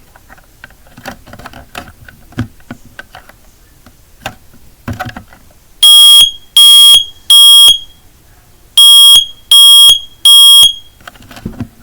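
Kidde i9070 smoke alarm sounding on its test button: loud high-pitched beeps in the temporal-three pattern, three short beeps, a pause, then three more, starting about six seconds in. A few light handling clicks come before it.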